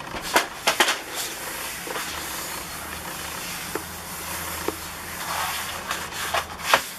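A bristle brush and cloths scrubbing through wet paint on a tabletop: a steady swishing hiss, with a few sharp knocks in the first second and again near the end.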